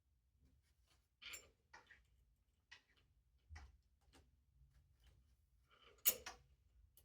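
Faint, scattered clicks and taps of small metal hardware being handled as nuts are put back onto the wheel's mounting screws, with one louder knock about six seconds in.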